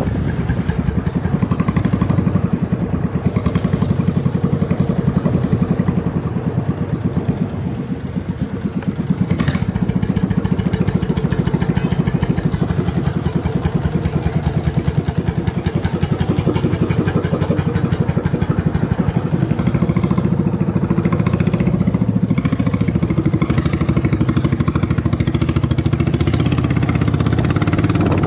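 Subaru EX40 14 hp single-cylinder air-cooled petrol engine running steadily at high revs while powering a small boat, its rapid firing pulses even throughout.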